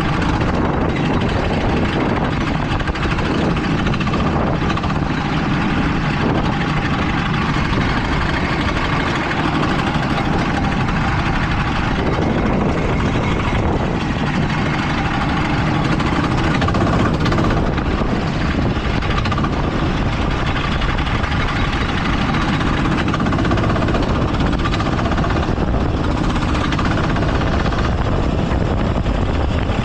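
Go-kart engine running continuously during a race, heard from onboard the kart, with small rises and falls in its note as the throttle changes.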